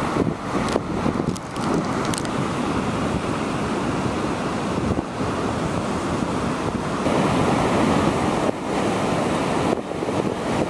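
Wind buffeting the microphone over the steady wash of sea surf, gusting unevenly.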